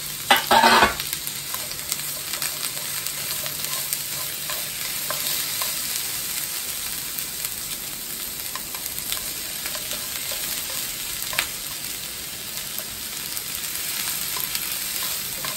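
Sliced onion, bell peppers and zucchini sizzling in a frying pan as they are stir-fried and turned with wooden chopsticks, with occasional light clicks of the chopsticks on the pan. A brief louder clatter comes in the first second.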